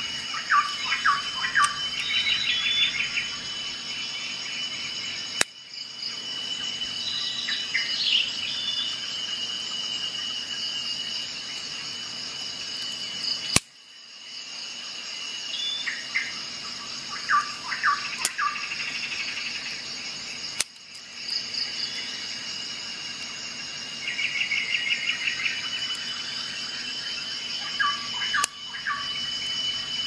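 Birds chirping and trilling in short clusters over a steady high-pitched drone. Three sharp clicks are each followed by a brief drop in the sound.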